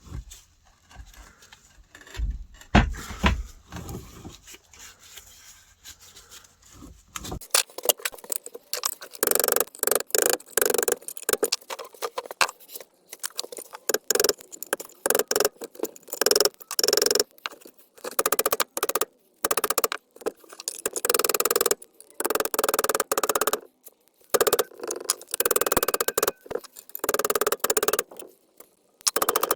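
Metal-on-metal knocking on a split differential while the pinion is being knocked out. A few single knocks come first. Then, from about seven seconds in, there are repeated bursts of rapid clattering impacts, each lasting about a second, with short gaps between them.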